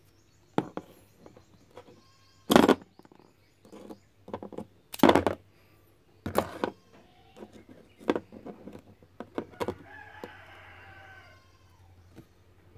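A series of sharp knocks and scrapes as a wet stone is moved and turned with metal blades on a hard surface; the two loudest come about two and a half and five seconds in. About ten seconds in, a rooster crows in the background for a second or two.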